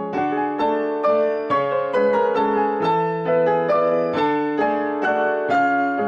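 Background piano music: a gentle melody of struck notes, each fading away, at about two to three notes a second.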